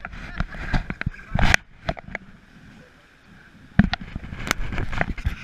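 River rapids rushing past an inflatable raft, broken by irregular sharp splashes and knocks from paddle strokes, with a quieter spell in the middle.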